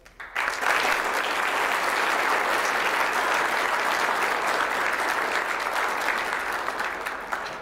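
Audience applauding, starting abruptly about half a second in and tapering off near the end.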